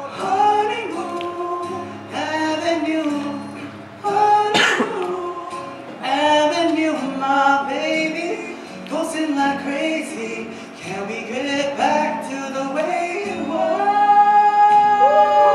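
A young man singing solo into a microphone, a slow sung melody in phrases, ending on a long held note near the end.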